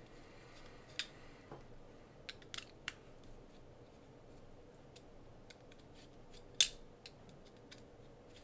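A few light clicks and taps of a hex driver and small metal parts as a screw is driven into a servo mount block, with the sharpest click about six and a half seconds in.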